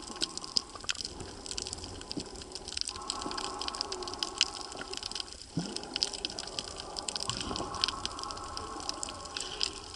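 Underwater sea sound picked up by a camera being carried by a snorkeler: water washing and gurgling, a constant crackle of sharp clicks, and a faint steady hum that drops out briefly twice.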